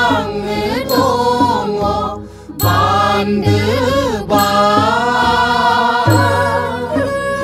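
A song from a Bodo wedding-song (haba methai) recording: a singer's voice bends through melodic phrases over instrumental backing, with a deep bass note at the start of each phrase.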